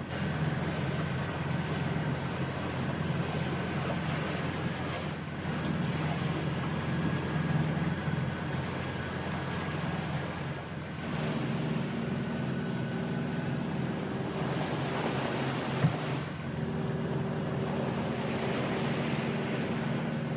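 Sailing yacht underway: wind and rushing water along the hull over a steady low hum, with one sharp tick about two-thirds of the way through.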